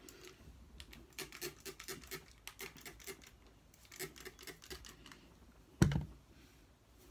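Hand-held trigger spray bottle spritzing hair, a fast run of short sprays several a second, then a second shorter run. Near the end, a single loud thump close to the microphone.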